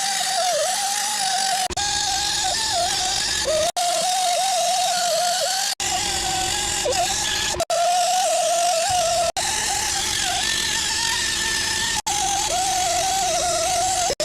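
A high-speed rotary grinder whining steadily as it ports the cast-iron cylinder head of a 12-valve Cummins diesel, its pitch dipping briefly each time the bit bears into the metal. The sound comes in short clips that cut off abruptly every one to two seconds.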